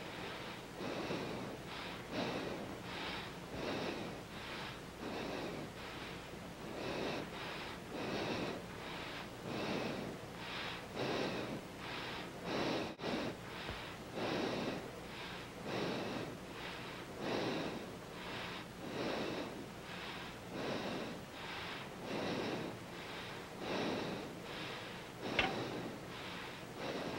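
A child breathing quickly and regularly through a gauze anesthesia mask as he goes under open-drop vinethene, about one and a half breath sounds a second. A brief sharp click comes near the end.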